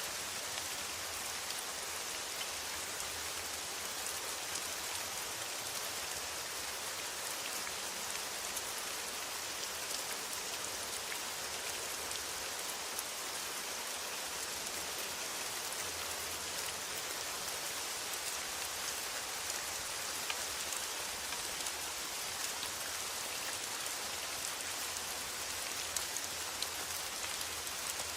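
Steady rain falling on a metal roof: a dense hiss sprinkled with countless small drop ticks.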